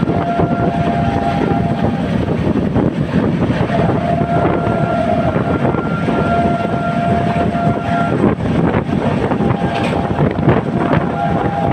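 WAP-7 electric locomotive's horn sounding in repeated long blasts as the express approaches, over a loud, steady rush of noise.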